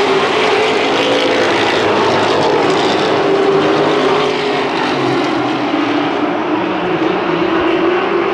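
Engines of a pack of race trucks running together around a short asphalt oval, a loud steady drone that eases slightly past the middle and builds again.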